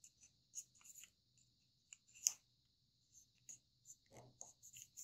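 Thin kami origami paper crinkling faintly in the fingers as it is folded and creased: a string of soft, uneven crackles, with one sharper crackle a little past two seconds in.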